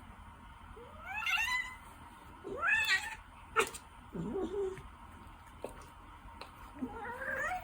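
Ragdoll cat meowing about four times, the calls mostly rising in pitch, with a sharp click between the second and third.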